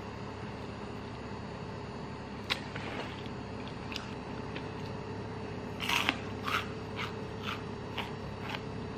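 Eating noises: a few soft clicks and mouth smacks, with a short cluster of crackly chewing sounds about six seconds in, over a steady low room hum.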